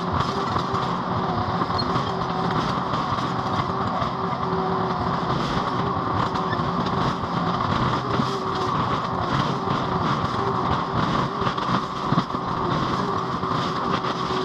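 Mini skid steer's engine running steadily, with one brief knock about twelve seconds in.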